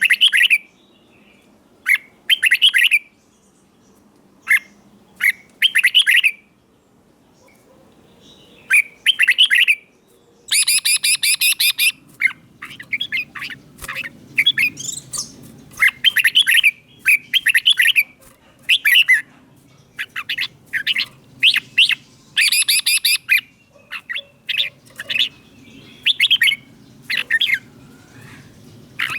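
Red-whiskered bulbul singing: short bright whistled phrases repeated every second or two, coming thicker and faster in the second half. Two harsh, rapid chattering bursts break in, about ten seconds in and again a little past twenty seconds.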